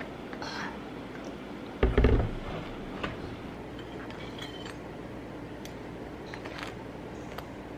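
A knife and fork clinking and scraping on a ceramic plate as food is cut, with one heavy thump about two seconds in, over a steady low hum.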